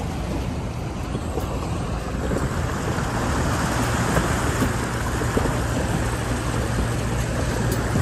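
SUV driving in four-wheel drive (four-high) through a shallow river: steady sloshing and splashing of water against the tyres and body over a low engine hum, rising a little after about two seconds.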